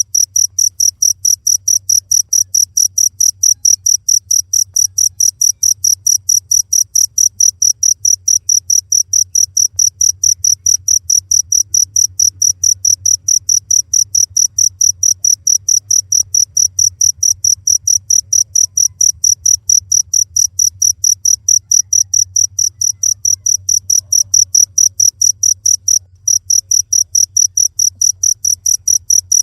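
Cricket chirping in a steady, even rhythm of high-pitched chirps, about four a second, with one brief pause near the end. A faint low hum runs underneath.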